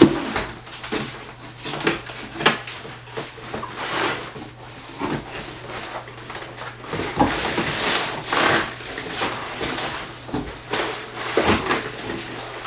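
Irregular knocks, clicks, scrapes and rustling of a bicycle and its parts being wrestled out of a cardboard shipping box and its packaging, with the sharpest knocks near the start and a denser spell of rustling about eight seconds in.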